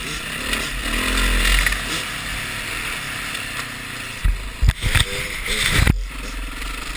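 Dirt bike engine running with wind rushing over the microphone while riding a dirt trail. About four seconds in comes a cluster of heavy thumps and knocks, lasting nearly two seconds, as the camera is jolted.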